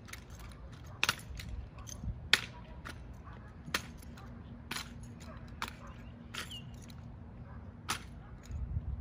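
Drill rifles being handled in a two-man drill routine: hands slapping and catching the rifles in an irregular string of sharp slaps and clicks, about a dozen, the loudest some two seconds in. A low rumble runs underneath.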